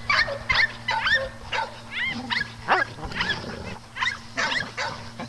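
Dogs playing rough together, giving a rapid string of short barks and high yips, several a second.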